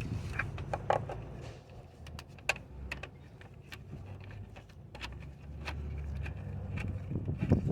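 Scattered light metallic clicks and knocks of hand tools and parts being handled during a starter replacement, over a low rumble, with a quicker run of knocks near the end.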